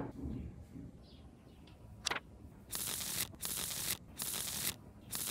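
Dried herbs and spices shaken from a small glass bowl onto diced raw chicken in a glass dish: four short bursts of sprinkling, each about half a second long, in the second half, after a light click about two seconds in.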